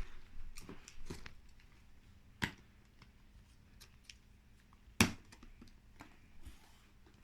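A cardboard LEGO set box being handled: light rustling and scraping with scattered small clicks, and two sharp knocks about two and a half and five seconds in.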